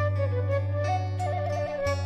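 Background music: a flute melody with quick ornamental turns over a steady low drone.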